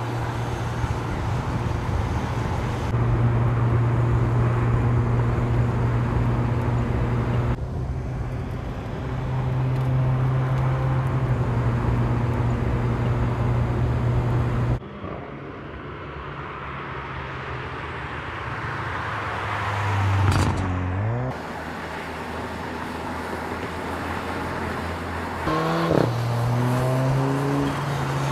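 Mercedes A45 AMG's turbocharged 2.0-litre four-cylinder engine and exhaust, heard in several abruptly cut stretches: a steady drone under load for the first half, then the engine revs up with a climbing pitch about twenty seconds in and again near the end.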